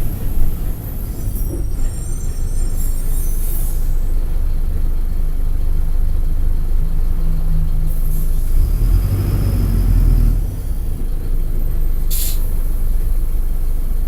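Mercedes-Benz OM-924 LA four-cylinder turbodiesel of an OF-1722M articulated bus running, its note building until it drops off suddenly about ten and a half seconds in. A short hiss of air sounds about twelve seconds in.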